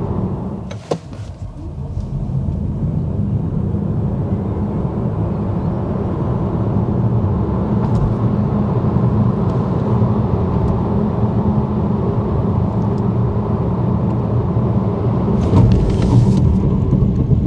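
Volkswagen ID.3 electric car driving at a steady speed, heard from inside the cabin: a steady low rumble of tyre and road noise. A few short clicks come near the end.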